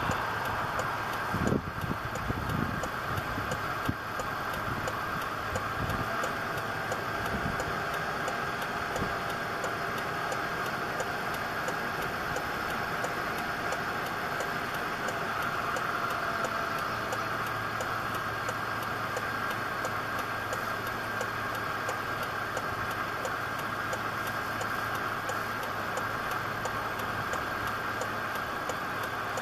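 Steady running noise like an idling engine, with a low hum setting in a little past halfway. A few knocks come in the first few seconds.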